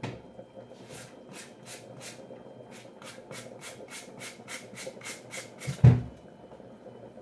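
Carrot being grated on a hand grater: quick, even scraping strokes, about four a second, for roughly five seconds. Near the end a single loud thump.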